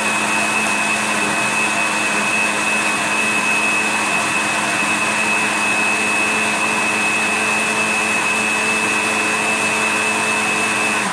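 Electric countertop blender running at a steady speed, blending a banana, milk and ice smoothie, with a constant high-pitched motor whine over the churning of the liquid. It shuts off right at the end.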